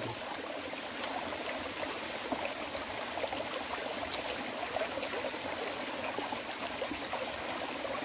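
Mountain stream flowing over rocks: a steady rush and trickle of water.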